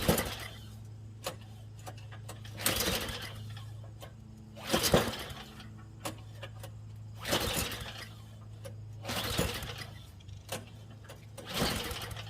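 Tecumseh snowblower engine being cranked over about six times, a couple of seconds apart, without catching, over a steady low hum. This is a failed start attempt on choke after a carburettor clean.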